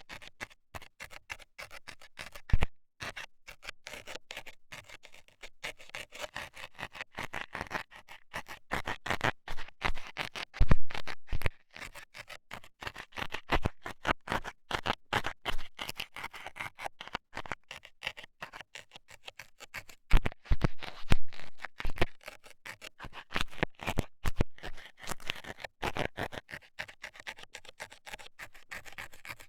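Metal scaler scratching and poking at a microphone's ear: a dense, irregular stream of sharp scrapes and clicks, with a few louder thumps about a third of the way in, around two-thirds through, and near the end.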